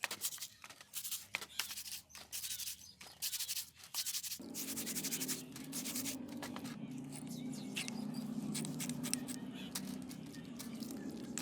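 A stiff brush scrubbing rusty metal in quick repeated rasping strokes, a few per second. About four seconds in, a low steady hum joins it.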